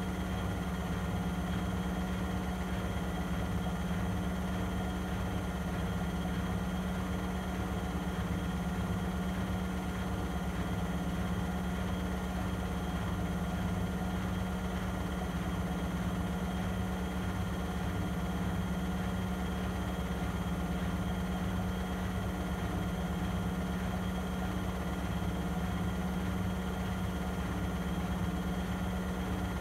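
Vestel CMI 9710 front-loading washing machine in its spin cycle at 800 rpm, running with a steady hum and a low throb that do not change.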